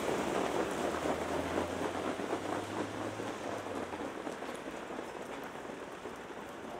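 Hoofbeats of a field of trotters and their sulkies on the dirt track, a dense patter that fades steadily as the horses move away.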